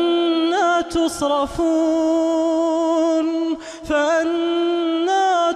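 A male voice recites the Quran in melodic tajweed style, holding long, drawn-out notes at a steady pitch. There are short breaks between phrases, and a brief dip about three and a half seconds in.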